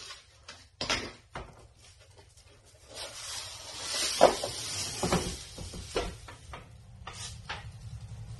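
Painted wooden bed-frame rails and panels knocking and clattering as they are picked up and handled, with rustling in the middle and the loudest sharp knock about four seconds in.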